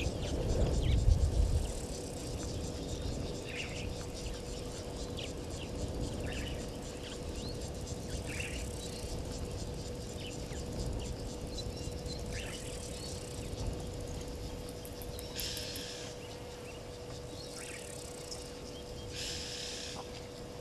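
Bushveld ambience: insects buzzing and ticking, with louder bursts of buzzing a second or so long, and short scattered bird chirps. A brief low rumble comes about a second in, and a faint steady hum runs underneath.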